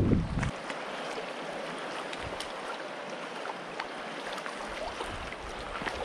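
Wind buffeting the microphone dies away about half a second in. A steady soft rush of breeze and small waves lapping on the rocky pond shore remains.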